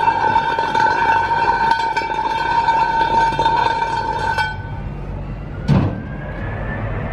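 Iveco boom-lift truck running, with a steady high tone over a low steady hum; the tone cuts off about four seconds in, and a single sharp clack follows near six seconds.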